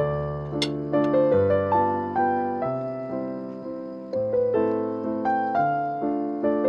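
Background piano music: melody notes and chords struck and left to fade, a new note about every half second.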